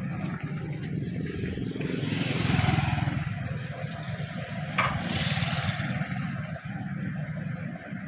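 SANY crawler excavator's diesel engine running steadily at idle, with a passing vehicle swelling louder about two to three seconds in and a single sharp knock about five seconds in.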